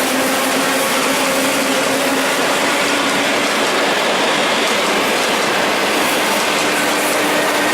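ED4M DC electric multiple unit running past on the rails, a steady, loud rolling noise of wheels on track with a faint hum.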